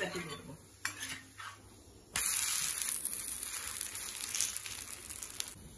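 Bottle-gourd adai sizzling in oil on a hot cast-iron tawa just after being flipped with a steel spatula. A few light scrapes of the spatula come first, then about two seconds in a loud sizzle starts suddenly and slowly dies down.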